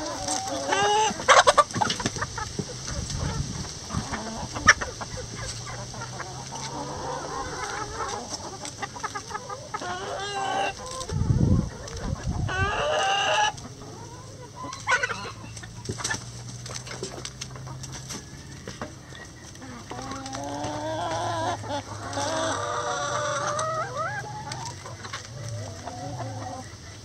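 Backyard hens clucking and calling as they crowd a hanging purple cabbage, with sharp taps of beaks pecking at it. A low thump comes a little before halfway.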